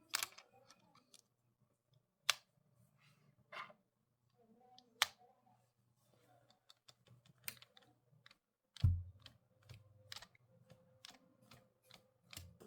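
Scattered small plastic clicks and snaps, about a dozen at irregular intervals, with a duller knock about nine seconds in: SoundPEATS wireless earbuds and their charging case being handled in a magnetic test, the buds and lid snapping into place.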